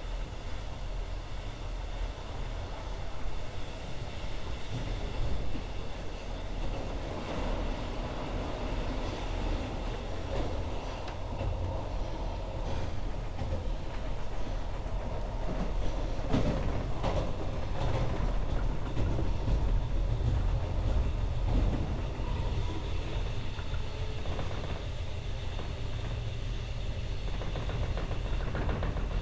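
Alex regional train running along the track: a steady low rumble of wheels on rails, with a short run of clacks about halfway through.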